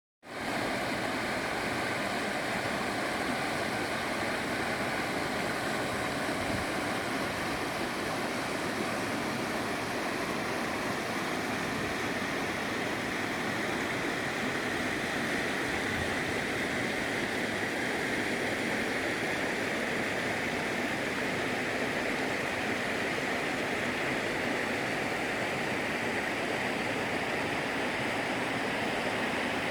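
Mountain valley stream running, a steady rush of water.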